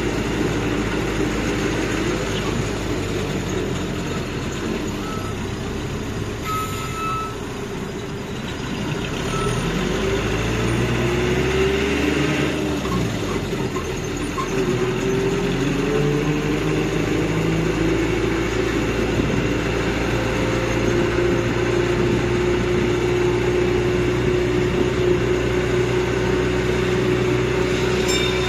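Land train's engine running, its pitch rising over several seconds around the middle as it picks up speed, then holding steady.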